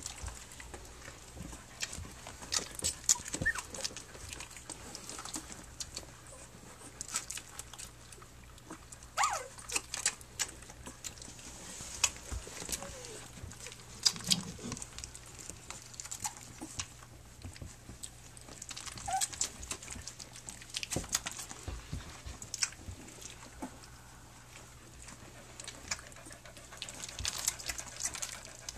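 Three-week-old Standard Schnauzer puppies nursing: many quick wet sucking and smacking clicks, with a few short squeaks.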